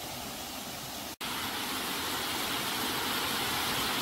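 Steady rushing noise with no clear pitch. It drops out for an instant about a second in and comes back louder and brighter.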